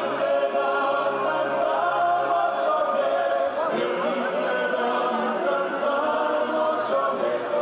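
Male klapa of seven voices singing a cappella in close multipart harmony, in the traditional Dalmatian style. A low bass note is held under the upper voices for the first couple of seconds, and the singing briefly dips for a breath about three and a half seconds in.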